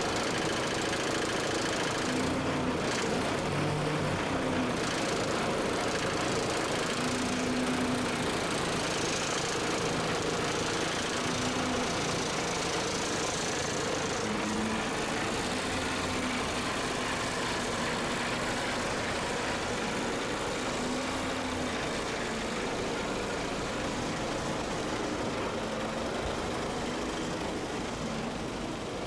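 Semi truck's diesel engine running at low revs as the truck creeps forward, a steady engine hum that gets slightly quieter near the end.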